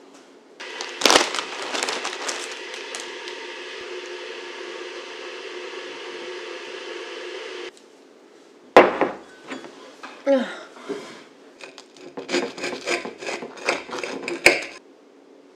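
A steady noise that starts and stops abruptly and lasts about seven seconds. Then a sharp knock, and near the end quick clinks and scrapes of a knife and fork on a metal plate as a fried egg on tomato is cut.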